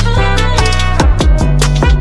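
Loud background music with a steady drum beat and layered melodic instruments.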